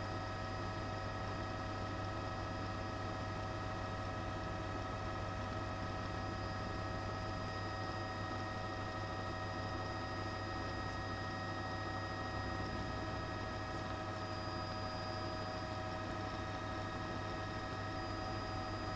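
Steady helicopter cabin noise: a constant low drone with several steady whining tones above it and a hiss, unchanging throughout.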